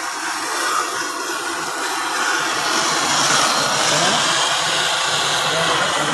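Brazing torch flame hissing steadily as it heats a tube on a fan coil unit's evaporator coil, sealing pinhole leaks.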